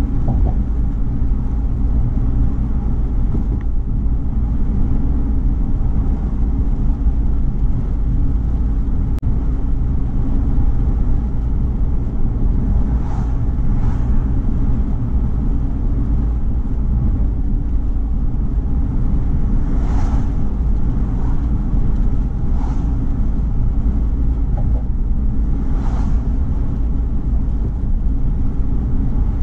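Car cruising at steady highway speed: a constant low rumble of tyre, road and wind noise, with a few brief swishes about halfway through and again near the end.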